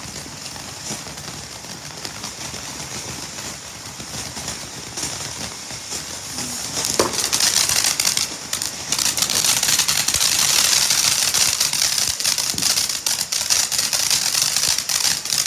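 A "Cool Cat" ground fountain firework spraying sparks with a steady hiss. About halfway through it builds into loud, dense crackling.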